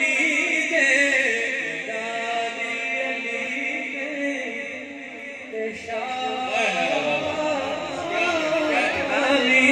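Men's voices singing a Punjabi naat, a devotional song, into microphones over a sound system.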